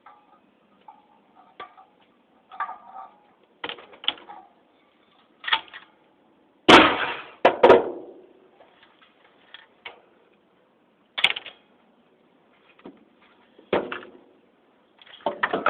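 Intermittent clanks, knocks and clatter of ceiling-fan parts and hand tools being handled during disassembly, the loudest two knocks about seven seconds in, with a sharp click a few seconds later.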